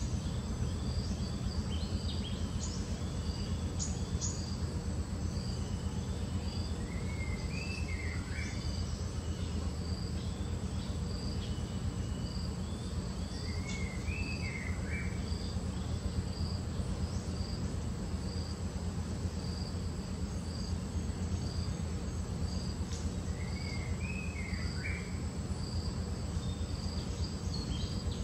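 Forest ambience: an insect chirping in an even repeating rhythm, and a bird giving a short whistled call that rises and then drops, three times, over a steady low rumble.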